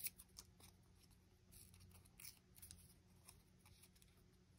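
Near silence with faint, scattered rustles and light ticks of a small piece of paper being handled and fiddled with by hand, a slightly louder tick right at the start.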